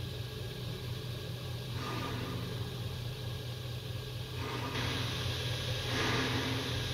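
Steady low hum with a hiss over it, like a fan or other appliance running in the room, with soft noisy swells about two seconds in and again past the middle.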